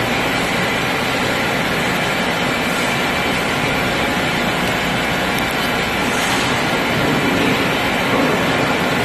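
Steady, loud rushing noise that does not change in level, with no distinct clicks or strokes.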